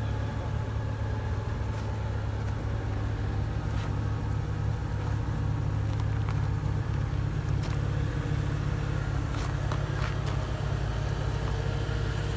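Off-road vehicle's engine running at a steady speed, with a few faint knocks over it.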